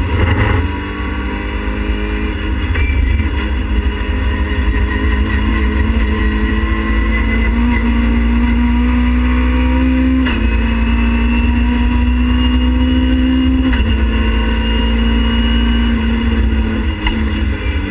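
Race car's engine heard from inside the cockpit under hard acceleration. The pitch climbs with the revs and drops sharply at two upshifts, about ten and fourteen seconds in.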